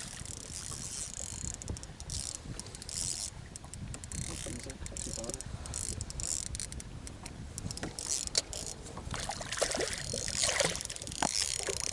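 Fishing reel being cranked in irregular spells, with clicks and handling scuffs in a boat.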